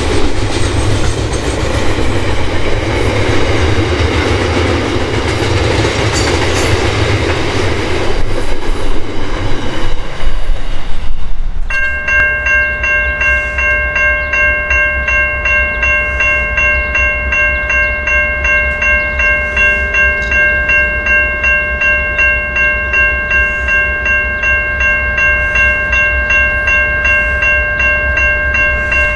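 A freight train running past with loud rumble and wheel noise, growing louder and choppier about eight to eleven seconds in. Then the sound changes abruptly to a level crossing warning bell ringing steadily about twice a second over a low rumble.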